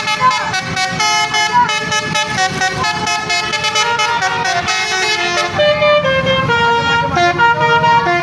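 Bus telolet horn, a multi-tone horn playing a tune of stepped notes, several tones sounding together. About five and a half seconds in the tune changes to longer, lower held notes.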